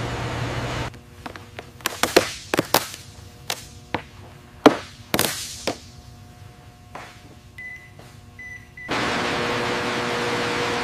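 Steady rushing hiss that drops away after about a second, giving way to a run of sharp clicks and knocks of parts and hand tools being fitted, with two short high electronic beeps near the end; the steady rushing hiss then comes back.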